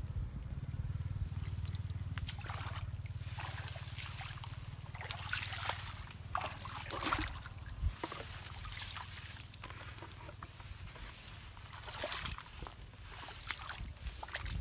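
Shallow muddy water splashing and trickling in irregular bursts as a person wades and moves about in it, over a steady low rumble.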